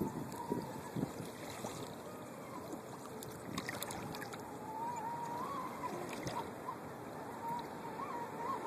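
Traxxas Spartan radio-controlled race boat's brushless electric motor whining faintly out on the water, its pitch wavering up and down with the throttle, over a steady haze of wind and water noise.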